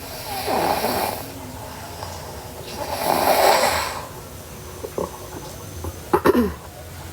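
A sleeping girl snoring: two long, rasping snores about two and a half seconds apart, followed near the end by a few short clicks.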